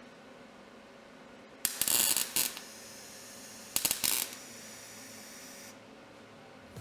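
Two short bursts of crackling arc from a welder laying tack welds on thin sheet-metal patch panel, the first about 0.8 s long, the second about half a second.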